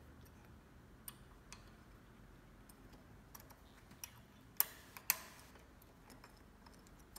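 Small steel hex keys clicking against the handlebar stem and its bolts while the bolts are being loosened: a few scattered light clicks, with two sharper ones about half a second apart a little past halfway.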